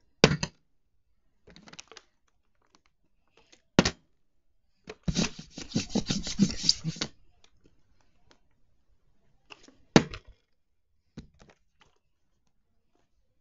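Plastic water bottle, partly filled, being tossed and landing on a board with short knocks, one just after the start, another about four seconds in and again about ten seconds in. Around five to seven seconds a quick run of crackles and knocks as the plastic bottle is grabbed and handled.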